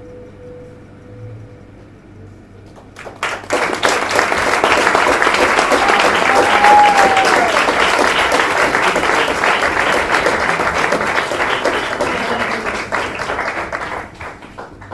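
Audience applauding in a small room. It starts about three seconds in, swells quickly, holds steady, then thins out near the end, after a last held note fades away at the start.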